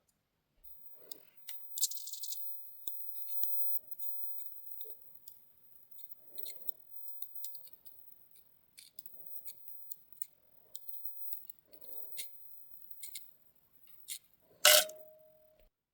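Small plastic clicks and soft scraping strokes, about one a second, as material is chipped away from a 1/64 micro RC car so its wheels can turn freely. A sharper click near the end rings briefly.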